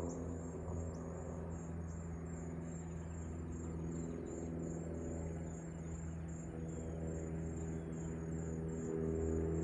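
Insects trilling in a high, evenly pulsing chorus, about three to four pulses a second, over a steady low hum.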